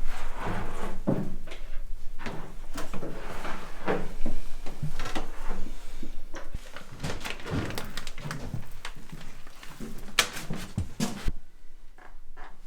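Irregular knocks and clicks of things being handled in a small room, with faint voices.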